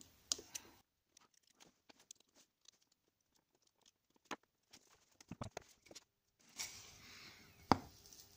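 Faint, scattered small clicks and taps from handling a wood-burning pen and its screw-in wire tip, with one sharper click about three-quarters of the way through.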